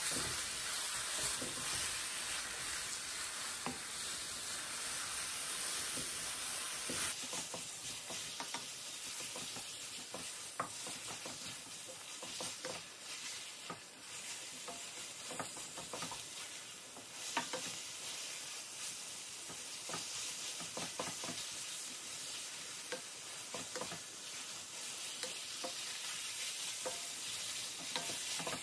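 Thin slices of beef frying in a hot wok: a steady sizzle, with frequent short scrapes and taps as a wooden spatula stirs and turns the meat against the pan. The sizzle is a little stronger for the first seven seconds or so.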